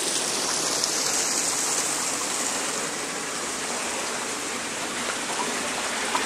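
Small stream flowing steadily, a continuous rush of water.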